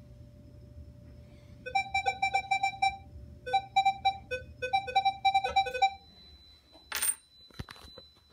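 Minelab Equinox metal detector sounding rapid, broken target beeps as a bottle cap is passed over its double-D search coil, jumping back and forth between a lower and a higher tone: the response by which a bottle cap is identified. A short clatter follows about two-thirds of the way through.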